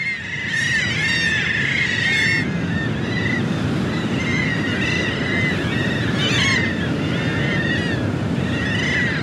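A flock of shorebirds and gulls calling: many short, arching chirps, repeated and overlapping, over the steady wash of surf.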